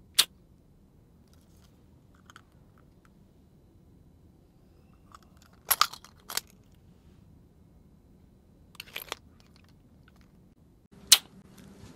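A few sharp plastic clicks a few seconds apart from a pill-shaped capsule ballpen being pulled open and snapped shut, with a quick cluster of three about halfway through and a single loud click near the end.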